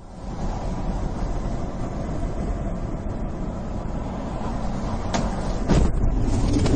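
Steady road and engine rumble heard from inside a moving car. A couple of sharp knocks come about five to six seconds in, after which the rumble is louder.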